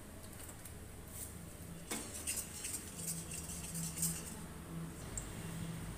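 A spatula stirring and scraping oil around an iron kadai: a few clicks, then a scratchy crackle from about two seconds in, over a low steady hum.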